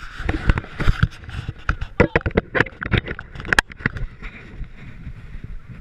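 Handling noise from a GoPro camera held in the hand: fingers rubbing and knocking on the housing and lens make a quick string of clicks and scrapes that eases off after about four seconds.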